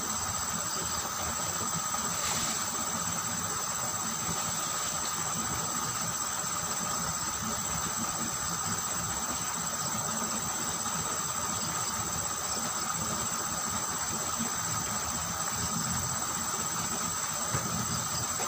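Steady rush of water flowing through a small stone-lined drainage ditch, with a constant high insect drone over it.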